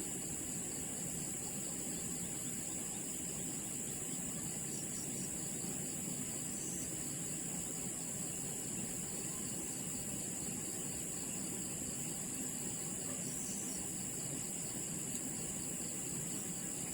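Steady rushing water of a weir, with a constant high insect chirring over it.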